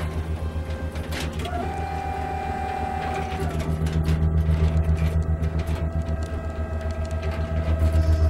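Fast, even, pulsing low mechanical hum of automated laboratory machinery and robotic arms, with a steady whine that comes in about a second and a half in and steps down a little in pitch about halfway through.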